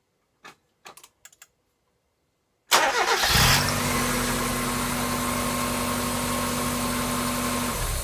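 Mazda MX-5 engine being started: a few faint clicks, then a little under three seconds in it catches abruptly with a harsh, noisy burst, settling into a steady idle that stops shortly before the end. The noise at start persists after new belts, and the owner wonders whether the water pump or power steering pump bearings are the cause.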